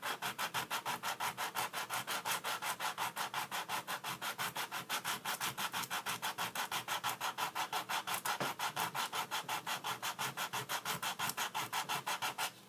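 Coarse sanding sponge rubbed by hand rapidly back and forth over a hardened epoxy-stick repair on a wooden corner, about seven strokes a second, stopping near the end. The cured epoxy sands to powder rather than gumming up, a sign it has fully dried.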